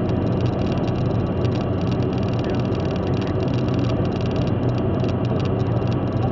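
Steady road and engine noise heard inside a car cabin while driving at motorway speed, with a continuous low hum.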